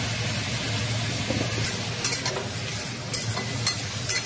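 Pumpkin pieces sizzling in hot oil in a metal kadai while a steel spatula stirs them. The spatula scrapes and knocks against the pan several times in the second half.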